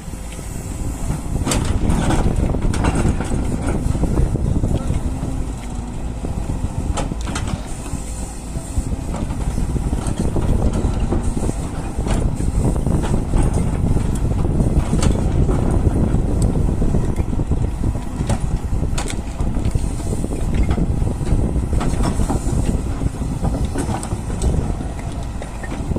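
Doosan DX140 hydraulic excavator working, its diesel engine running steadily and swelling and easing every few seconds, with scattered sharp knocks.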